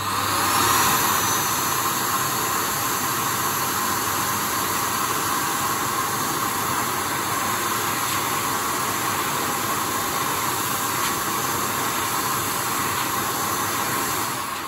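Partly dismantled PHS Airstream Vitesse blade hand dryer running at full blow: a steady, loud rush of air over the high whine of its motor, which the owner takes for a vacuum-cleaner-type motor. It switches off at the very end, the motor's pitch starting to fall as it spins down.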